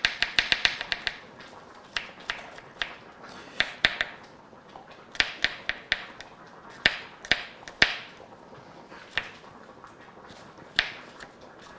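Kitchen knife chopping garlic: irregular sharp taps, a quick run of them at the start and then scattered strokes with pauses between.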